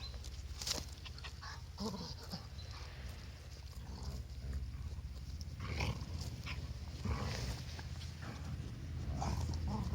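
A sheep grazing: scattered short tearing and cropping sounds as it pulls at grass, over a low steady rumble.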